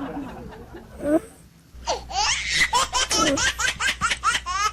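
Laughter: a short vocal sound about a second in, then, after a brief pause, a long run of hearty laughter in quick peals, about five a second.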